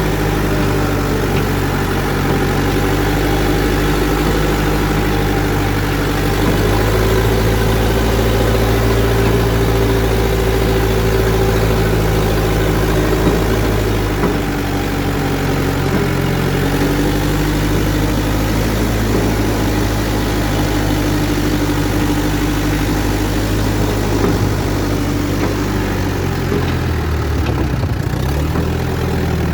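Backhoe's diesel engine running steadily, its speed rising about seven seconds in, easing back around fourteen seconds, rising again a few seconds later, and dipping briefly near the end.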